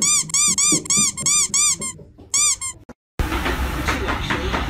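A rapid run of identical high-pitched squeaks, about four a second, each rising and falling in pitch; they break off about two seconds in, with a few more just after. A little past three seconds the sound cuts to a steady clattering noise.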